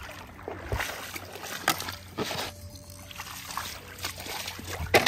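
Water splashing and sloshing in several short bursts, the last the loudest, as a plastic toy animal is swished and rinsed in shallow water.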